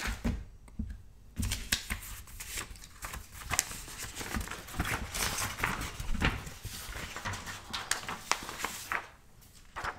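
Sheets of drawing paper being lifted, slid and rustled by hand on a tabletop. Scattered light taps and crinkles sound through most of it, with a brief lull near the start and another near the end.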